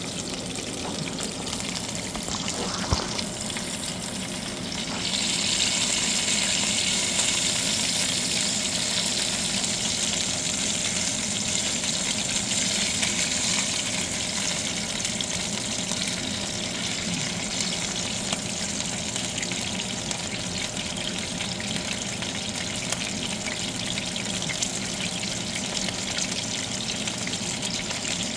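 Steak sizzling in hot oil in a frying pan, a steady hiss that grows louder and brighter about five seconds in.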